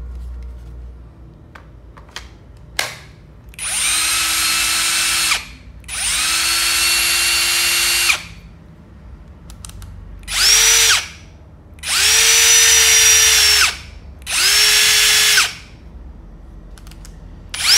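Ryobi R18PDBL 18 V brushless cordless hammer drill spinning with no load in five short trigger bursts of one to two seconds each, with a sixth starting at the end. Each burst spins up quickly to a steady whine and stops cleanly. The first two runs are lower in pitch than the last three.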